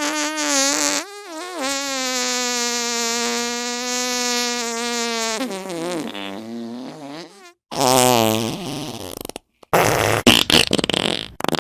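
A run of fart sound effects: a short wobbling one, then a long steady one of about six seconds that wavers in pitch as it ends, followed by a shorter, noisier one and a rapid crackling sputter near the end.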